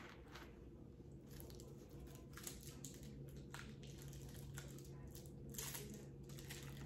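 Quiet handling noise of candy decorations and their packaging: scattered soft clicks and crinkles, over a steady low hum.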